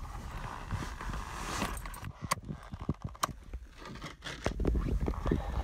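Scraping and rustling of alpine-touring ski gear being handled, with a few sharp clicks near the middle as skis and bindings are knocked and slid about in the snowy truck bed.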